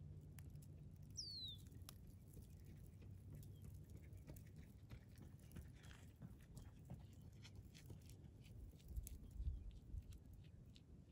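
Near silence: faint outdoor ambience with scattered faint ticks, one short high falling chirp about a second in, and a low rumble near the end.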